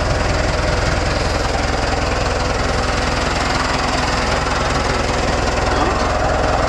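Tractor engine running steadily at an even speed, heard from on board.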